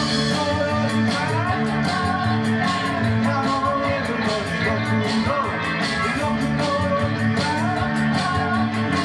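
A rock and roll band playing live: electric guitars over drums with a steady beat.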